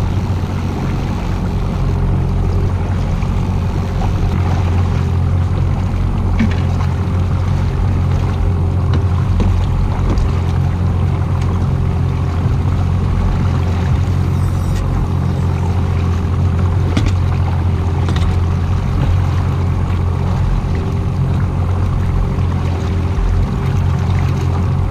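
Boat engine running steadily at trolling speed, with water noise and a few faint clicks.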